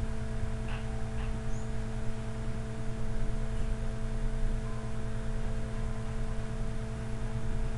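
Steady electrical hum: several fixed tones over a low rumble and faint hiss.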